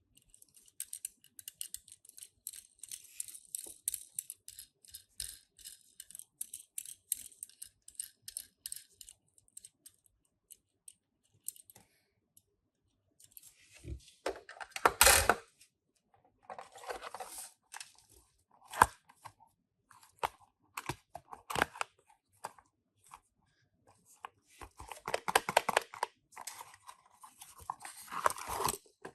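Toy-car packaging being opened and handled by hand: crinkling, tearing and clicking of cardboard and plastic, dense for the first ten seconds, with a louder rustle about halfway through and another busy stretch near the end.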